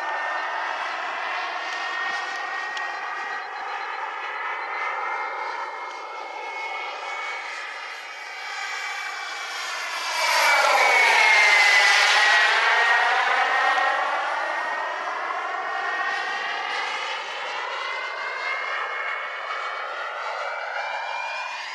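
Small gas-turbine engine of a radio-controlled Exocet model jet whining steadily as the jet flies around, swelling to its loudest as it passes close overhead about halfway through, then fading back.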